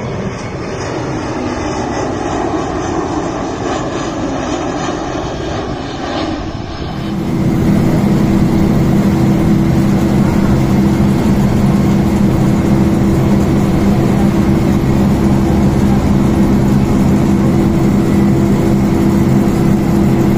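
Aircraft engines at an airport: a broad, rushing engine noise, then, from about seven seconds in, a louder steady drone with several steady low hums, as of an airliner's engines running close by.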